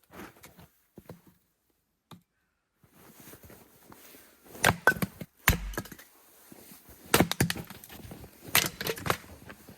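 Wood being chopped and split for kindling: a quiet start, then about seven sharp knocks and cracks from about five seconds in, mostly in pairs, one a heavier thud. The wood is somewhat rotten.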